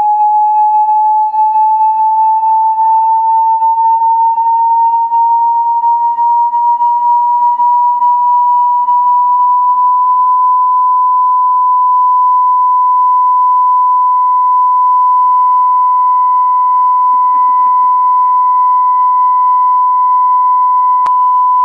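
Loud sine-wave test tone from a signal generator, played through a homemade speaker cabinet, sweeping slowly up from about 850 Hz to 1 kHz over the first ten seconds and then held steady at 1 kHz. A single short click near the end.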